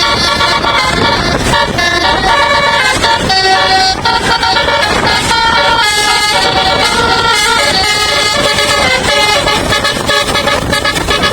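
Telolet Basuri-style multi-tone musical air horn on a bus playing a tune, its notes changing in quick steps, over a steady rush of background noise.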